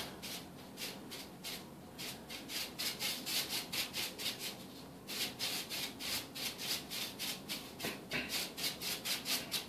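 A 3-inch paintbrush swept lightly back and forth over wet paint on a wall, a faint, rhythmic bristle swish of several strokes a second. The strokes are blending the paint while it thins and dries. There is a short pause about four seconds in.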